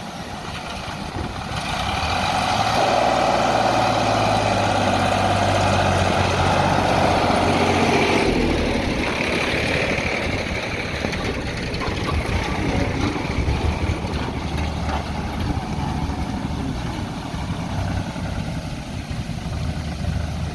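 Diesel engine of heavy earth-moving machinery running. It works harder, louder with a strong mid-pitched whine, from about a second and a half in until about eight seconds, then eases back to a steadier lower note.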